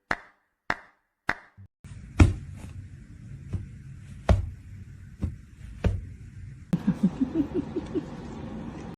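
A series of sharp knocks or taps, spaced about half a second to a second apart, with a string of short rising squeaks near the end.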